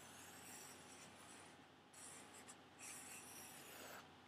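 Soft pencil strokes scratching across a paper drawing pad, in three runs with two brief pauses.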